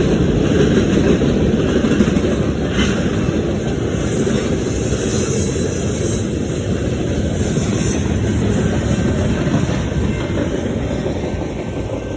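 Freight cars of a fast BNSF manifest train rolling past: a steady rumble of wheels on rail that slowly fades toward the end.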